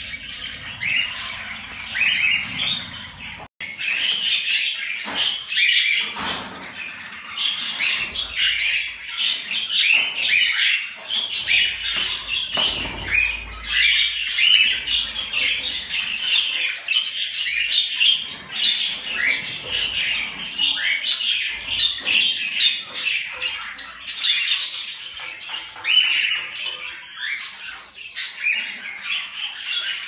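Cockatiels calling: a dense run of short, overlapping rising chirps and squawks.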